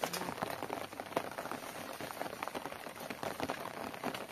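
Rain pattering steadily, a dense patter of many small drops.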